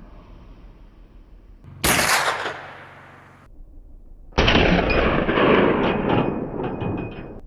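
Two rifle shots, one about two seconds in and a second, with a longer rolling tail, a little over four seconds in.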